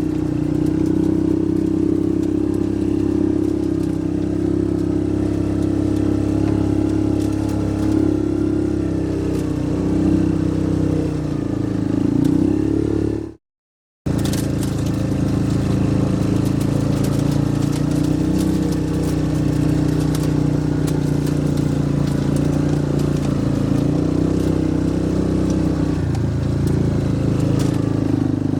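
Yamaha Rhino side-by-side's single-cylinder engine running steadily while driving, its pitch dipping and picking up again a couple of times as it slows and speeds up. The sound cuts out completely for about half a second just past the middle.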